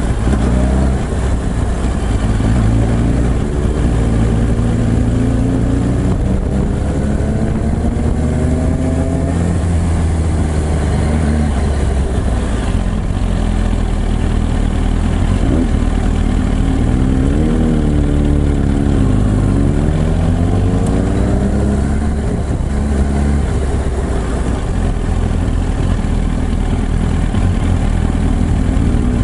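2007 Yamaha YZF-R1's inline-four engine and exhaust running while riding in slow traffic. The pitch climbs as it pulls through a gear a few seconds in, then rises and falls several times a little past halfway as the throttle is opened and closed, with steady low running in between.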